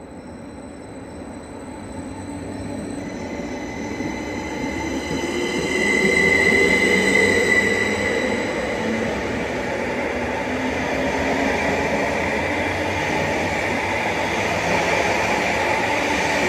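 Electric multiple-unit train moving off past the platform, gathering speed. The whine of its traction motors rises in pitch over the first several seconds, over growing wheel-on-rail rumble that stays loud as the carriages go by.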